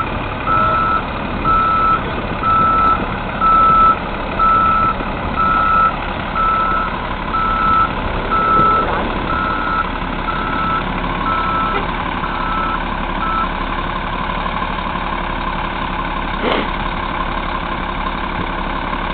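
A heavy vehicle's reversing alarm beeping at an even pace, a little more than once a second, over the steady running of its engine while it backs up; the beeping stops about two-thirds of the way through and the engine keeps running.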